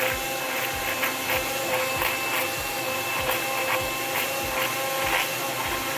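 Countertop blender running at a steady pitch, blending a liquid mix of milk, eggs and vanilla, with small irregular knocks throughout.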